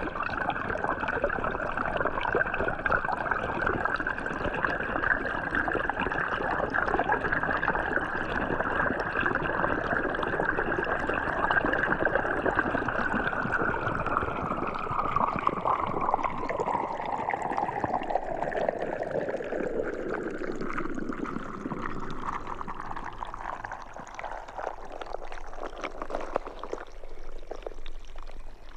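Hydrophone recording from under a creek waterfall: a dense, steady underwater rush of water. About halfway through, its brighter part glides steadily lower in pitch over several seconds, and the sound thins out near the end.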